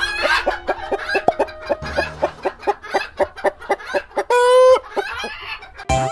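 Hen clucking in rapid short clucks, about five a second, then one loud drawn-out squawk about four seconds in, followed by a few more clucks.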